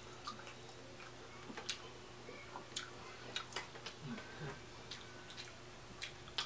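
Eating sounds from a seafood meal: irregular soft clicks and mouth smacks, a few at a time.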